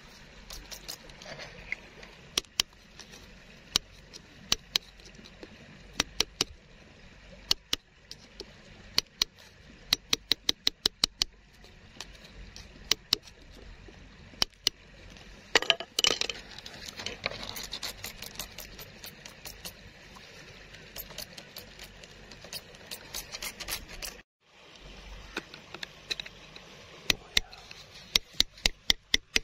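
Sharp clicks and taps of pebbles and grit against stone as a stone is picked and scraped out of wet, gravelly mud, some in quick runs, with a stretch of denser scraping about halfway through.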